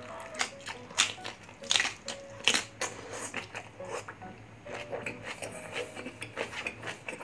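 Close-miked chewing of leafy greens in a thick peanut stew: irregular wet smacks, clicks and crunches from the mouth, the loudest in the first three seconds.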